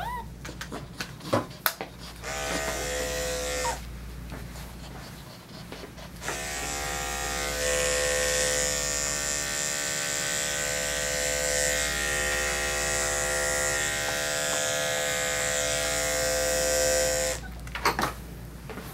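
Handheld pet blow dryer running: a steady motor whine with rushing air. It runs briefly about two seconds in, cuts out, then comes back on about six seconds in and runs steadily for about eleven seconds, a little louder soon after it restarts.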